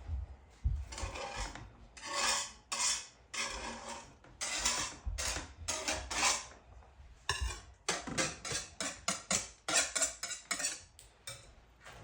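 A spoon scraping and stirring thick blended bean batter for akara in a bowl: a run of short rasping strokes that come faster in the second half.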